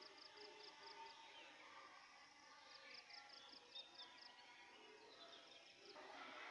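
Faint insect chirping in short trains of rapid, even pulses, about nine a second, repeating three times, with a faint bird call or two in the background.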